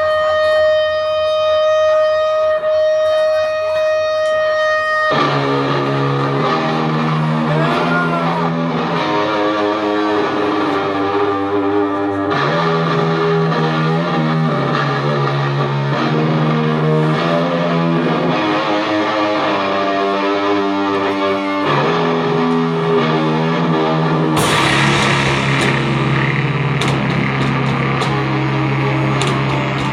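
Doom metal band playing live, heavily distorted: a single guitar note rings out held for about five seconds, then a low, heavy guitar riff comes in with chords changing every second or two. About 24 seconds in, a bright crashing noise joins over the riff.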